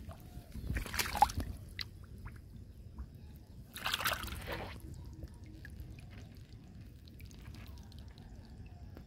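A hand splashing and sloshing in shallow muddy paddy water while digging into a crab hole in the mud, with bursts of splashing about a second in and again around four seconds in, then quieter.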